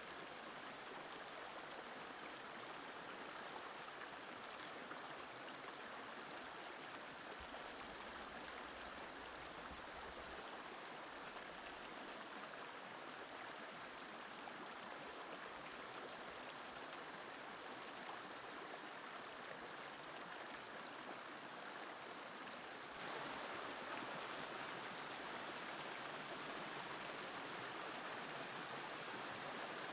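Shallow rocky stream rushing over stones, a steady watery noise. About three-quarters of the way through it becomes suddenly louder and brighter.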